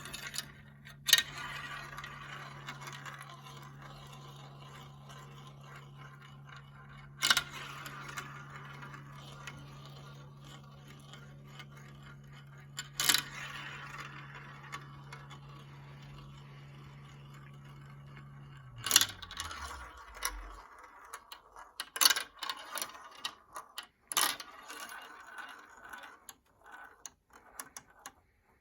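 Marbles rolling and rattling along a marble run's track, with sharp clacks every few seconds as they drop or strike. A small motor hums steadily beneath, then winds down and stops about 19 seconds in.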